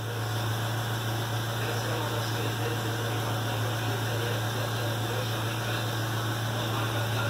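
Steady low hum under an even hiss of background noise, unchanging throughout.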